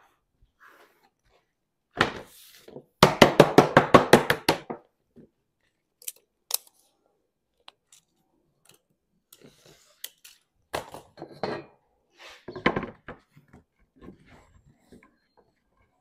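Sheet lead being knocked into shape by hand: a sharp knock about two seconds in, then a rapid run of about a dozen strikes, followed by scattered taps and another cluster of knocks near the end.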